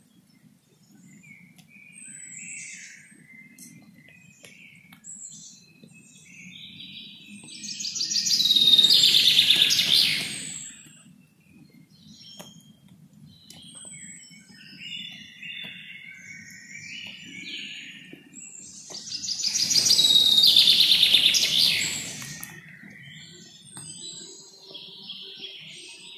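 Small birds chirping and calling in scattered short high notes. Twice, about 8 and 20 seconds in, there is a louder couple of seconds of dense, rapid high chirping.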